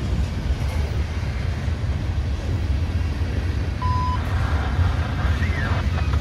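A steady low rumble from a large vehicle, with one short beep about four seconds in.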